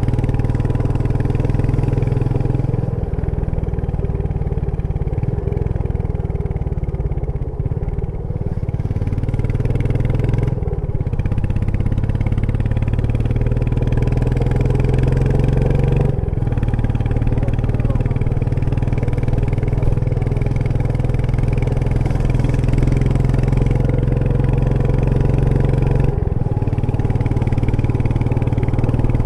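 Royal Enfield Meteor 350's single-cylinder engine and exhaust running steadily on the move, its pitch breaking briefly about a third of the way in, around the middle and again near the end as gears are changed.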